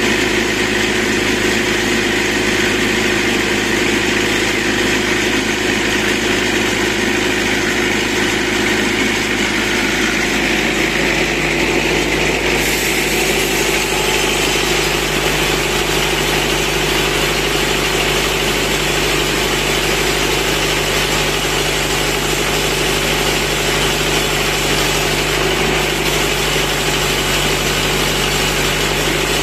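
Tractor engine running steadily at about 1,650 RPM, driving a mobile sawmill's saw through its PTO shaft while the blade cuts a thick log.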